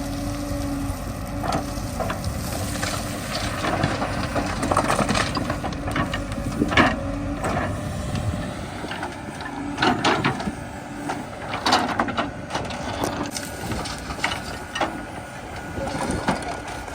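JCB 3DX backhoe loader's diesel engine running, with irregular metallic clanks and knocks from the bucket and arm at work in mud, the loudest about 7, 10 and 12 seconds in.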